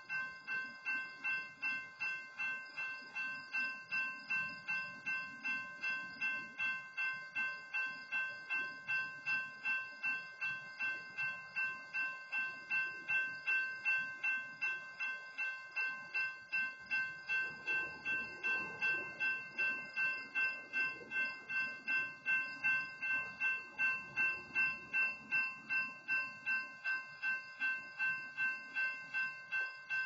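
Railroad grade-crossing warning bell ringing steadily in rapid, even strikes, about two and a half a second. The crossing signal stays active because a stopped freight train is standing across the road.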